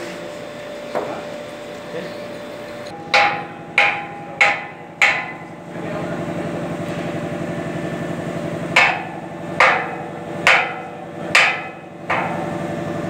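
Sledgehammer blows on a freshly thermite-welded steel rail, knocking the mould off the hot weld: a run of four quick ringing metal strikes about three seconds in, then five slower strikes starting near nine seconds. A steady hum runs underneath and is loudest in the gap between the two runs.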